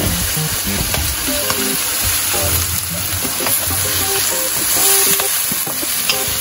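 Vegetables sautéing in a hot steel wok, with a steady sizzle while a wooden spatula stirs and scrapes them around the pan.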